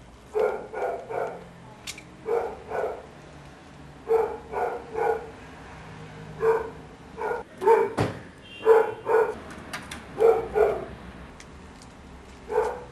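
A dog barking over and over: short barks in quick pairs and triplets with pauses between the groups, about sixteen in all.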